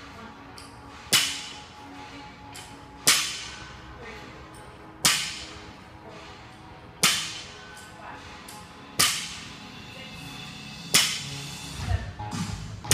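A 20 kg barbell loaded with 15 lb plates is dropped from overhead onto the gym floor between power snatches, six sharp bangs about two seconds apart, each ringing out briefly in the large room.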